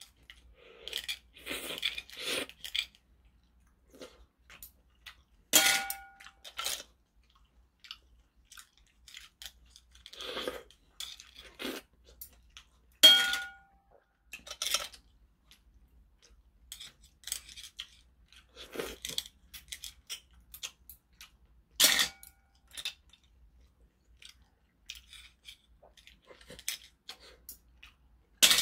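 Close-up chewing of shellfish, with scattered small clicks of metal chopsticks. Four sharp clinks of the chopsticks against a ceramic platter ring briefly; the loudest comes about halfway through.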